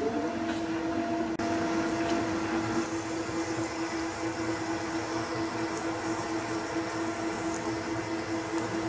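Victor lathe running at a steady speed with a steady hum, while a bimetallic hole saw fed from the tailstock cuts into the spinning plate gear blank, close to breaking through.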